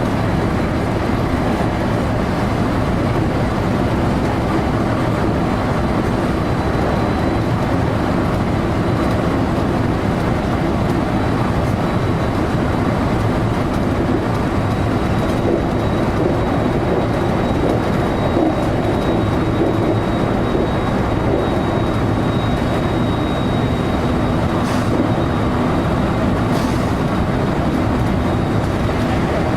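JR local electric train running steadily, heard from inside the front car: a continuous rumble of wheels and running gear with a faint high whine over it.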